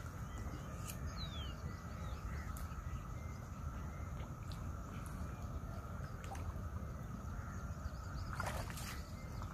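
Open-air lakeside ambience: a steady low wind rumble with a few faint bird calls, one a short falling call about a second in, and a brief sharper sound near the end.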